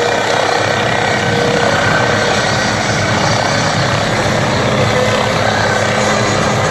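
Helicopter running, a loud steady rush of engine and rotor noise.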